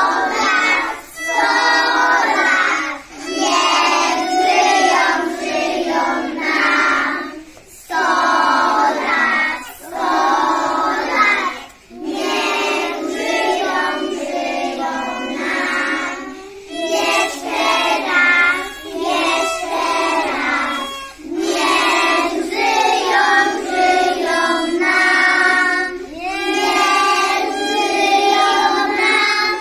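A group of preschool children singing a Polish song together, in phrases of a few seconds with brief breaks between them.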